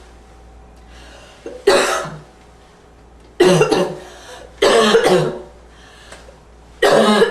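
A person coughing four times, a second or two apart: a slight, wheezy, barking cough.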